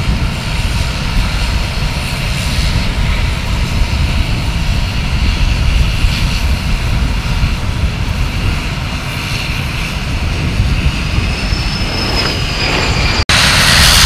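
A-10 Thunderbolt II's twin TF34 turbofan jet engines: a steady rumble with a high whine that dips slightly in pitch near the end. Just before the end the sound cuts abruptly to louder engine noise as an A-10 lifts off at takeoff power.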